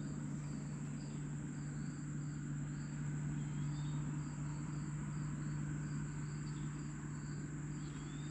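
Crickets and other insects calling: a steady high-pitched drone with a quick, evenly repeated chirp over it. A low steady hum runs underneath, and a short rising call sounds twice.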